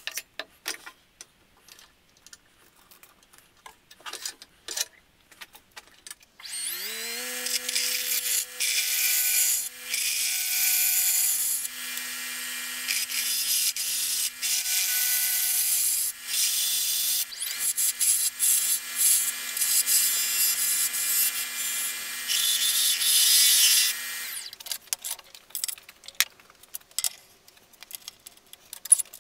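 A few handling knocks, then a wood lathe's motor spins up with a rising hum about six seconds in and runs steadily while a turning tool cuts a spinning wood blank, a loud hissing scrape in spells with short breaks. The lathe and cutting stop together about 24 seconds in, followed by light knocks and clicks as the piece is handled.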